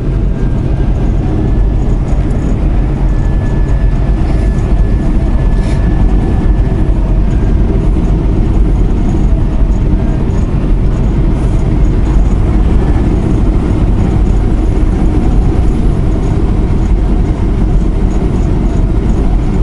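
Steady drone inside a semi truck's cab at highway speed: diesel engine, road noise and the buffeting of a strong crosswind.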